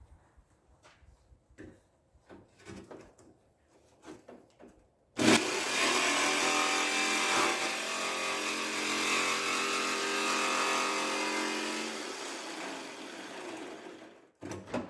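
An angle grinder cutting through the car's thin steel front fender, starting suddenly about five seconds in with a loud, steady whine over harsh grinding noise, easing off and stopping just before the end. Before it, only light clicks of handling.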